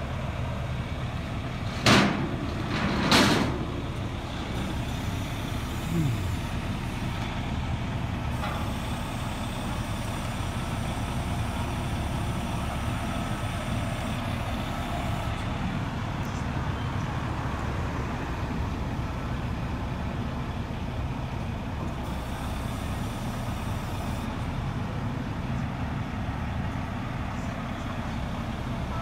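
Truck engine running steadily, with two sharp hisses of released air about two and three seconds in.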